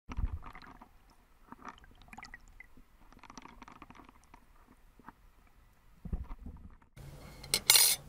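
Faint scattered clicks and pops with a water sound. Then a thin tin sheet is handled on a wooden table, giving two loud, short rustling scrapes near the end over a low steady hum.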